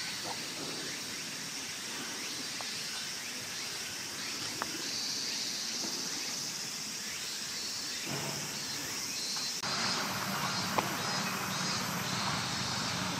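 Steady outdoor background noise with a few faint clicks; the background changes abruptly about ten seconds in.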